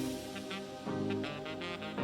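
Background music: an upbeat jazzy tune led by brass horns, playing in short rhythmic phrases.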